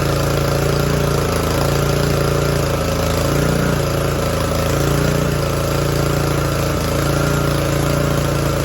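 Honda GCV160 single-cylinder engine of a pressure washer running steadily, with slight wavers in speed, after its clogged carburetor jet was cleaned.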